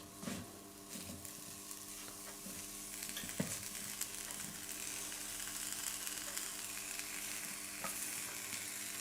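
Mushrooms sizzling as they fry in a pan: a steady hiss that grows a little louder after about three seconds, with an occasional faint tick.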